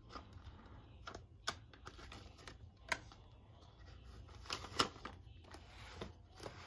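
Soft clicks and rustling of a clear plastic cash envelope being opened in a ring binder and five-dollar bills being pulled out, with a few sharper clicks about three and five seconds in.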